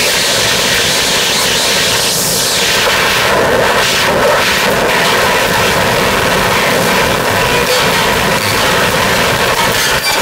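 Loud, dense electronic noise from a live harsh-noise set played on table-top electronics and effects boxes: a steady wall of noise with a hissing swell about two seconds in and a shifting midrange surge a couple of seconds later.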